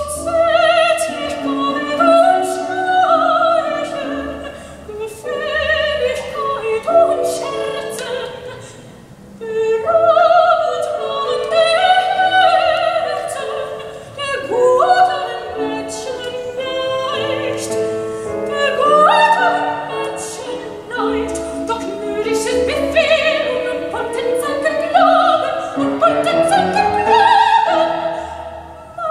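Operatic singing with classical instrumental accompaniment, played back over a hi-fi system: Dared tube amplifiers driving Rogers loudspeakers.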